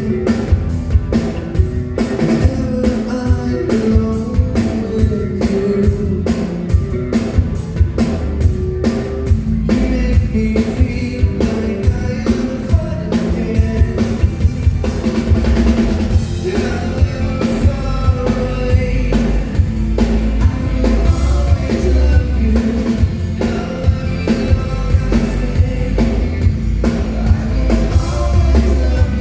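A live band playing a rock song: a drum kit keeps a steady beat under bass and a singing voice.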